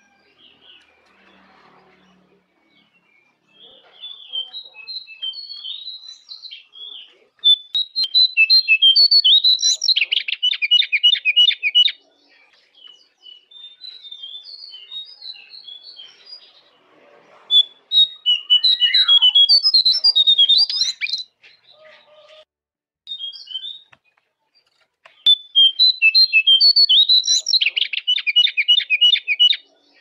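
A jongkangan songbird singing: quick varied whistled notes that run into a fast, even trill. There are three loud bouts, about 8, 18 and 25 seconds in, with softer scattered notes between them.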